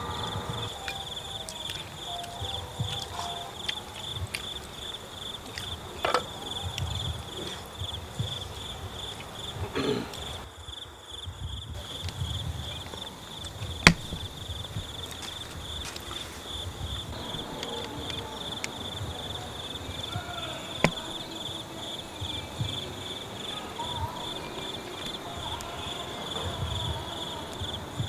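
Insects chirping in a steady, pulsing high trill, with a few sharp clicks or knocks now and then, the loudest about halfway through.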